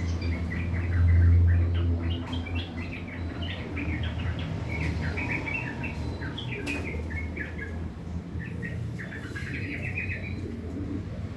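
Yellow-vented bulbul (trucukan) singing a rough, rapid chattering twitter in quick bursts of short notes. A steady low hum runs underneath and swells briefly about a second in.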